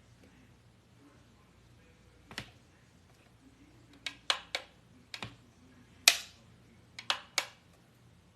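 Rollo label printer's power button being pressed over and over: about nine sharp plastic clicks at irregular intervals, the loudest about six seconds in, with no start-up sound from the printer, which is not powering on.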